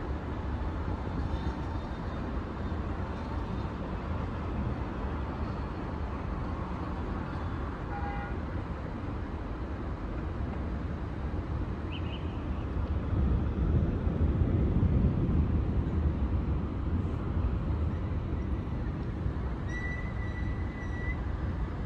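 Rainstorm wind and heavy rain with street traffic: a steady rushing noise over a deep, fluctuating rumble that swells about halfway through. A short high tone sounds near the end.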